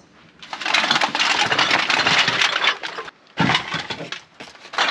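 Black plastic bin bags stuffed with empty drink bottles and cans rustling, crackling and rattling as they are handled and pushed into a car's boot, in three bursts.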